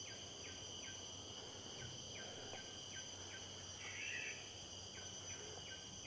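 Forest ambience: a steady, high-pitched insect drone with a run of short falling chirps repeating a few times a second, and a brief warbling call about four seconds in.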